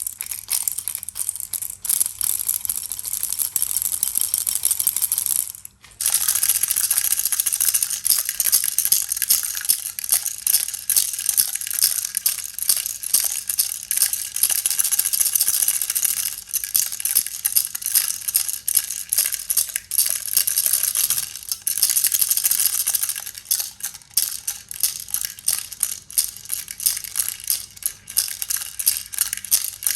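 Baby rattle being shaken, a fast, continuous rattling of small pieces inside it, with a brief pause about six seconds in.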